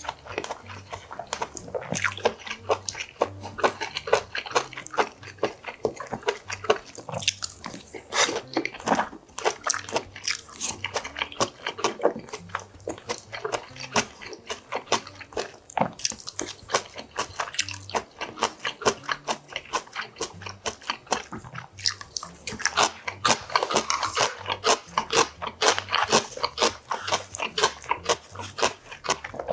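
Close-miked eating: chewing and crunching mouthfuls of food, with many small clicks of chopsticks and a wooden spoon against dishes.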